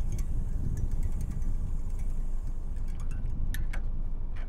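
Deep-sea trolling reel paying out line as the lead weight is lowered, giving a few scattered light clicks over a low steady rumble.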